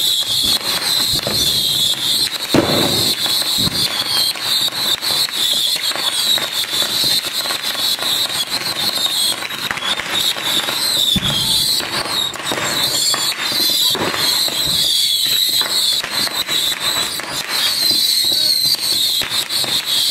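A fireworks cake of over 5000 small whistling rockets (baby whistle rockets) firing nonstop: a dense, wavering high-pitched whistle over a constant crackle of tiny pops. There are heavier bangs about two and a half seconds and eleven seconds in.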